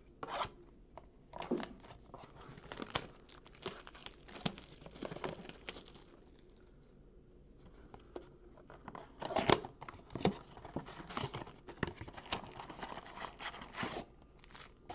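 A cardboard 2019-20 Panini Mosaic blaster box being torn open by hand: scattered irregular tearing and crinkling noises, the loudest a little past halfway through.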